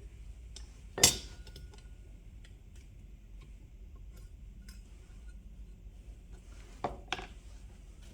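A sharp metallic clink about a second in, with a brief ring, from old brass and iron doorknob hardware being handled. Faint small ticks follow, and a couple of softer knocks come near the end.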